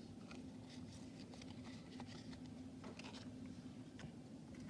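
Faint scattered clicks and rustles of Pokémon trading cards being handled and shuffled through the hands, over a low steady hum.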